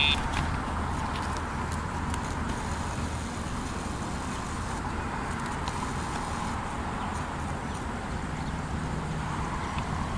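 A short high electronic beep right at the start from the Dogtra e-collar's sound box, which sounds whenever the pager is pressed to cue the deaf dog. After it comes a steady low rumble of background traffic.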